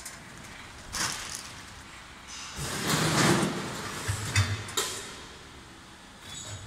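Vertical packing machine with its multihead weigher working: a sharp mechanical clack about a second in, then a rush of noise swelling and fading with clattering, and two sharp clacks near the end of it.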